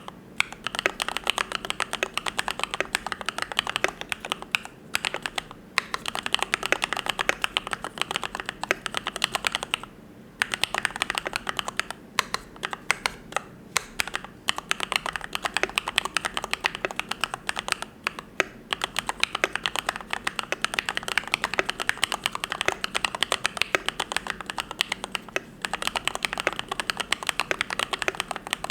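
Steady, fast typing on a YMD75 V3 custom mechanical keyboard with lubed Gateron Yellow linear switches: a dense run of keystrokes with a few brief pauses.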